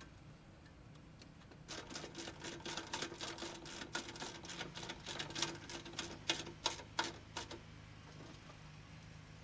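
Quick, irregular clicking and rattling of wire connectors and a small hand tool being handled, starting about two seconds in and stopping a little after halfway.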